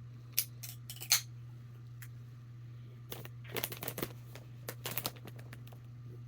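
Scattered small clicks and light handling noises: a few taps in the first second or so, then two short clusters near the middle, over a steady low hum.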